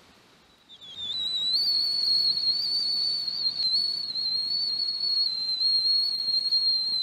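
Stainless steel camp kettle whistling at the boil through a wooden whistle fitted on its spout. A single high, steady whistle starts about a second in, rising slightly at first, then holds with a slight waver.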